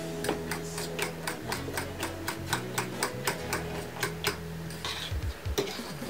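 Fork beating eggs in a ceramic bowl, clicking against the bowl's side about five times a second; the clicking stops about four and a half seconds in.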